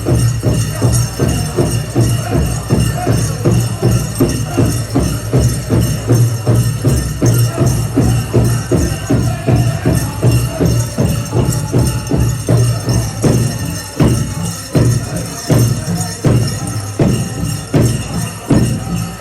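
Powwow drum group beating a large drum in a steady, fast beat of about three strokes a second, with singers' voices over it and the shimmering jingle of bells or metal jingles on dancers' regalia.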